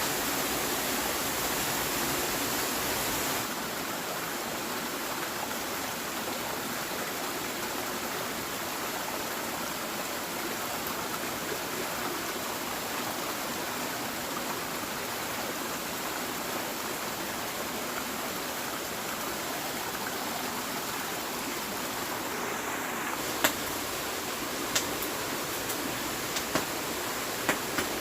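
Steady rush of water, with a slight drop in level about three seconds in. A few sharp clicks sound near the end.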